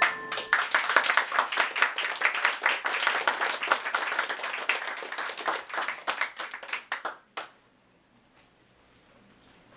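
Small audience clapping, thinning out and stopping about seven and a half seconds in.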